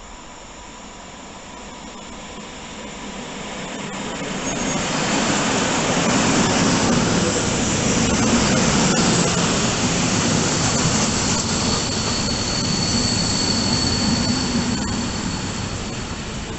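A train running through the station: a rumbling, rushing noise that builds over several seconds to a loud peak and then slowly fades. After the loudest part a thin, high, steady squeal sounds for a few seconds, typical of steel wheels or brakes on the rails.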